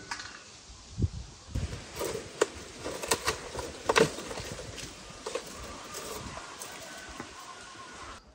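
A homemade fruit picker, a cut plastic bottle on a long wooden pole, is worked through a pear tree's branches. Leaves rustle, and the branches give a run of sharp knocks and clicks, the loudest about four seconds in.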